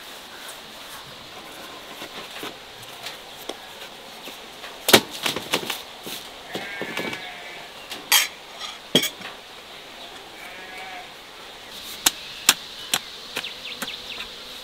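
Livestock bleating: two short wavering calls, about six and ten seconds in. Sharp knocks and clatter are scattered throughout, and the loudest of them come just before and between the calls.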